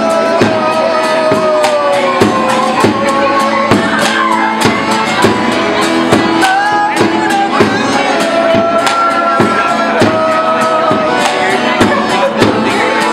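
Live acoustic band playing: a man sings over strummed acoustic guitar and accordion, with percussion struck in a steady, driving beat of about two to three hits a second.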